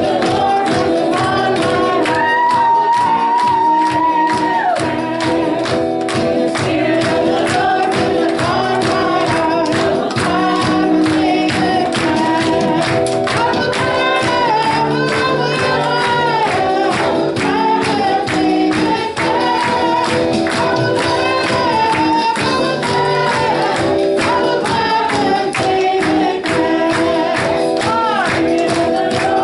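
Live worship music: a group of voices sings a melody over held instrumental chords and a steady percussive beat.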